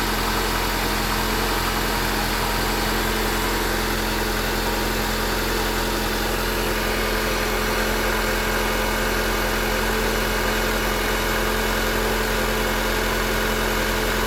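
Eighth-generation Honda Accord engine running steadily at an even speed. The owner hears a knock from this engine that is worst from cold and lessens as it warms, but is still audible between 2,000 and 3,000 rpm even though the valves were adjusted 15,000 km ago.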